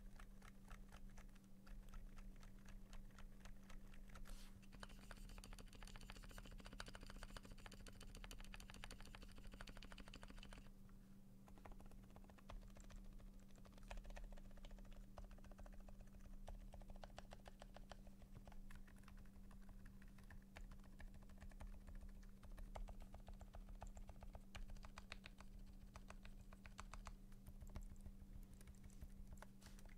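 Continuous fast typing on a custom KBD8X mk2 mechanical keyboard with lubed Durock Dolphin linear switches, a brass plate and PBT keycaps: a faint, dense run of quick keystroke clicks, with a steady low hum underneath.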